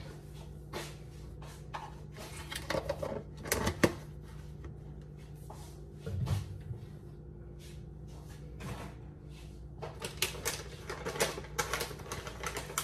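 Kitchen handling sounds: scattered clicks and knocks of things being picked up and set down, then a dense run of crinkling from a plastic snack bag near the end, over a low steady hum.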